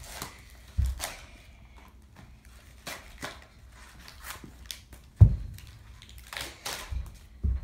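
Dull thuds of a child's bare feet landing on a carpeted floor as she jumps, a handful in all, the loudest about five seconds in, with light crinkly rustling between them.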